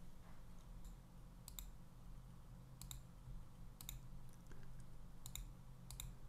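Computer mouse clicking about five times, several of them in quick pairs, over a faint steady low hum.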